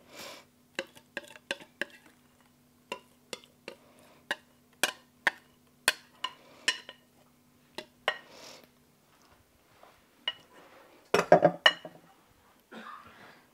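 A utensil scraping and tapping against a glass mixing bowl as the last of the cobbler batter is scraped out: a run of sharp, irregular clinks, two or three a second, then a louder clatter near the end.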